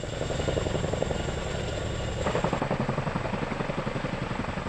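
Chinook tandem-rotor helicopter hovering low, its rotor blades beating in a rapid, even rhythm.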